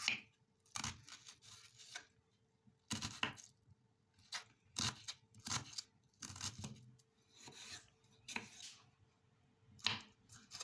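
Kitchen knife dicing a peeled onion on a wooden cutting board: irregular crisp cuts with the blade knocking on the board, roughly one every half-second to second.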